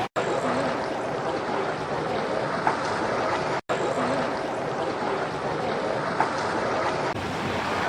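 Steady rush of wind on the microphone with waves lapping at the water's edge. The sound drops out briefly twice.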